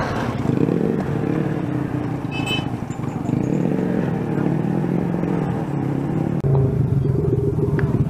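Street traffic: motorcycle engines running close by in a steady low drone, with a short high beep about two and a half seconds in.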